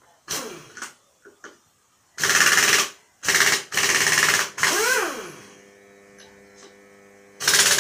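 An impact wrench hammers in short rattling bursts on a nut of a motorcycle engine being stripped. The fourth burst ends in a falling whine as the tool winds down. A steady hum sets in about halfway, and a final burst comes near the end.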